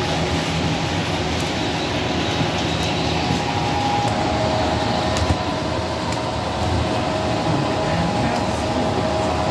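Steady room hum with indistinct background voices.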